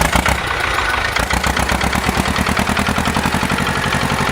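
An engine running steadily at idle with a rapid, even beat.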